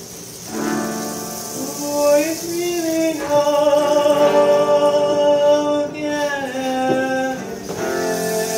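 Live acoustic music: guitar accompaniment under a long, held melody line that slides from one sustained note to the next.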